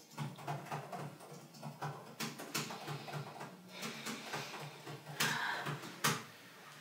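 Laptop keyboard being typed on: irregular quick key clicks with a few louder taps, in a small room.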